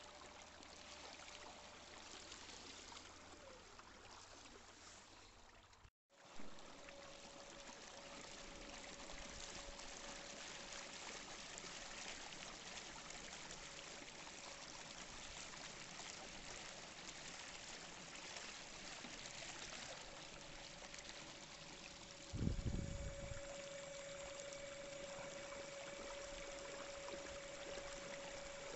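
Water rushing along the hull of a kayak under way behind a Torqeedo electric outboard, with a faint steady whine from the motor. The sound cuts out briefly about six seconds in, and there is a short low thump near the end.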